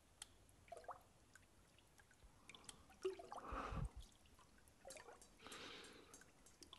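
Near silence: room tone with faint scattered clicks and a couple of soft rustles, one about halfway through and one near the end.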